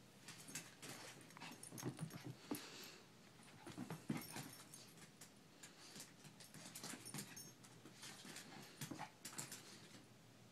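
Small dog play-fighting with a cat: faint short grunts and whimpers, with scattered clicks and scuffles of claws on a hardwood floor.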